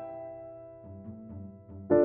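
Background piano music: a held chord fading, a few low notes about a second in, then a new chord struck near the end.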